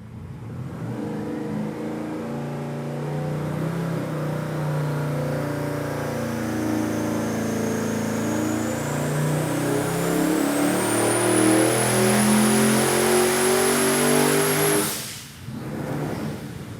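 428-cubic-inch twin-turbo Ford V8 making a full-throttle dyno pull through a 3-inch DynoMax Race Bullet straight-through muffler. The engine note climbs steadily with rpm while a turbo whine rises in pitch and levels off near the top. About fifteen seconds in the throttle closes and the sound drops suddenly back to a lower running note.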